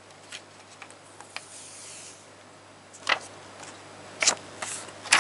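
Thin plastic non-glare screen protector film being flexed and picked at between the fingers to separate its backing sheet, giving soft rustles and clicks with sharp plastic crackles about three seconds in and again around four and five seconds in.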